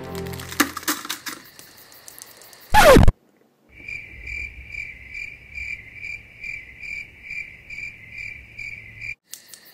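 A short, loud whoosh falling in pitch about three seconds in, then a steady cricket-chirping sound effect, about three chirps a second, that stops shortly before the end.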